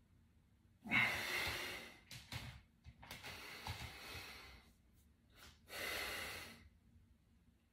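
A man's heavy breaths of effort while flexing through bodybuilding poses: three forceful breaths, the first and loudest about a second in, the others about three and six seconds in.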